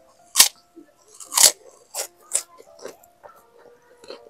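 Close-up eating sounds: a person biting into and chewing crunchy food, with several sharp crisp crunches in a row, the loudest about half a second and a second and a half in.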